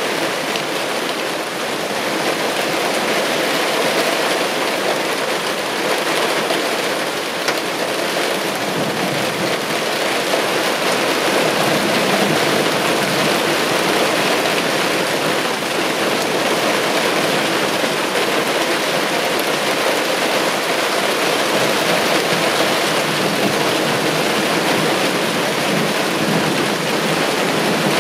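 Heavy downpour of large raindrops in a squall-line thunderstorm: a dense, steady rush of rain that grows a little louder about a third of the way through.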